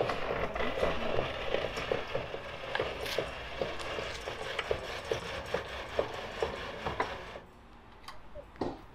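Motorhome roller awning being wound out with a hand crank: the winding gear gives a rhythmic run of rapid clicks over a rattling whirr, stopping about seven and a half seconds in.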